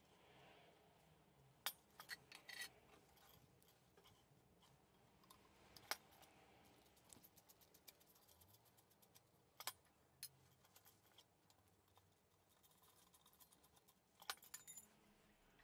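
Faint, scattered metal clicks and clinks as a screwdriver works a screw on a Coleman 508A gasoline stove's burner bracket, with a small cluster of ticks just past two seconds in and again near the end.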